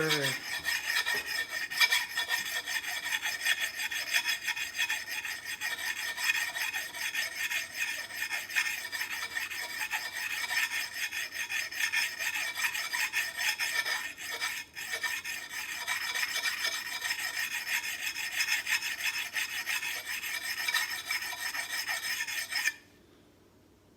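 Sharpening stone rubbed in rapid, continuous strokes along a steel axe edge, a steady gritty scraping as it grinds away the burr on the edge's micro bevel. The scraping stops abruptly shortly before the end.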